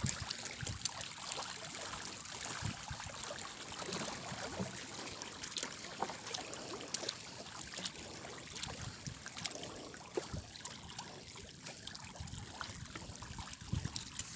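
Faint water lapping and trickling against a small wooden boat, with scattered small clicks and knocks.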